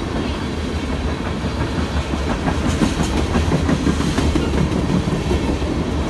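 Freight train of tank cars rolling steadily past, a continuous rumble with the clickety-clack of wheels over the rail joints, the clicks sharpest in the middle stretch.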